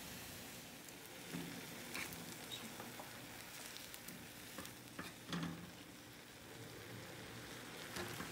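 Spaghetti being tossed with metal tongs in a frying pan of boiling pasta water and melting butter: a faint steady sizzle with a few short clicks and scrapes of the tongs against the pan.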